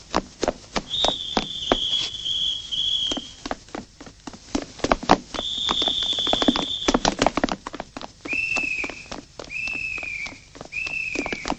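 Running footsteps clattering quickly and irregularly on stone paving. Over them come repeated shrill, steady high tones: a few long ones, then four shorter, slightly falling ones about a second apart.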